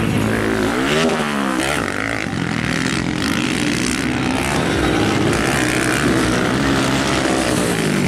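Several motocross bikes' engines running and revving on the track. Their pitch rises and falls quickly as the throttles open and close, with a sharp rev-up and drop about a second in and another near the end.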